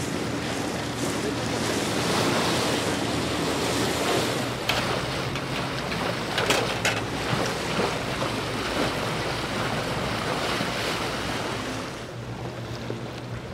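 Wind buffeting the microphone and water rushing past the hull of a boat under way, with a steady low engine drone underneath and a few sharper gusts or splashes about midway.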